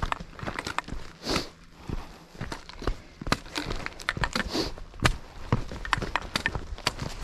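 Footsteps on a rocky trail: a string of irregular crunches and scuffs, with two short hissing sounds about a second in and again past the four-second mark.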